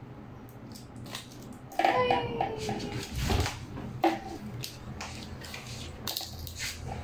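Light plastic clatter and knocks of small toys hanging on tape strands being tugged and bumped against a plastic playpen rail, with a short baby vocal sound about two seconds in.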